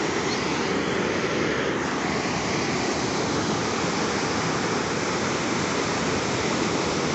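Sea surf washing against a shoreline rock: a steady rushing of water.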